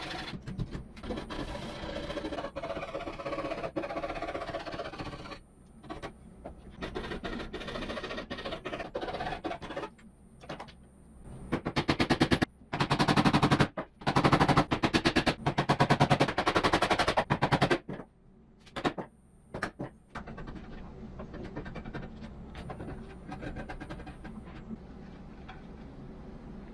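Power tool running in four bursts of a second or two each, with a rapid rattling beat, after several seconds of lighter workshop handling noise.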